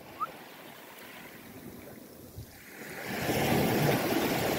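Waves washing at the water's edge, with wind noise on the microphone, swelling louder about three seconds in.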